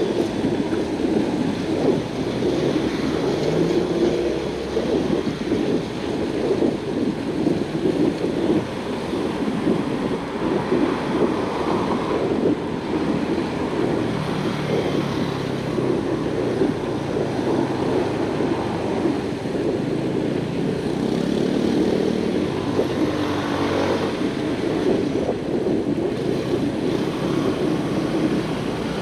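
Wind buffeting the microphone on a moving bicycle, a steady low rumble, with traffic on the road alongside. A vehicle is heard rising in pitch a little past two-thirds of the way through.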